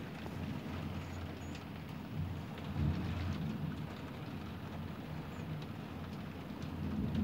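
Heavy rain falling steadily, with drops ticking against the window glass. Low rumbles of thunder swell about two to three seconds in and again near the end.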